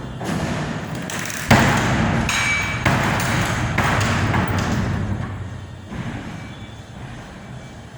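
Several sudden knocks and clatters, the loudest about one and a half seconds in, with a short ringing ping between two and three seconds in, dying away over the last few seconds.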